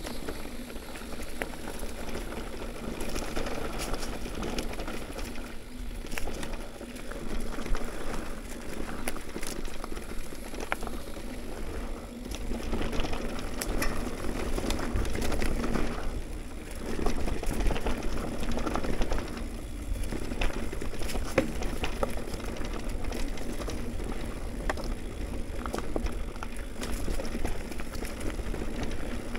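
Mountain bike riding down a dirt trail: tyres rolling over dirt and gravel with the bike rattling and clicking over bumps, under a low rumble of wind on the microphone.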